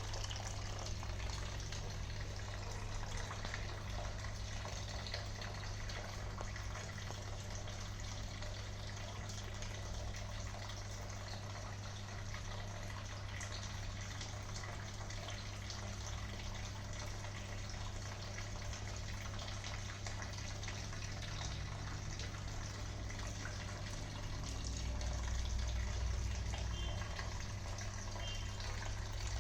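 Water splashing steadily from a garden water fountain, over a steady low hum.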